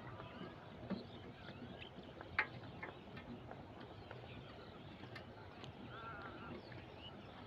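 Faint outdoor ambience of birds chirping, with a short animal call about six seconds in. A sharp click about two and a half seconds in is the loudest sound, with a smaller knock near one second.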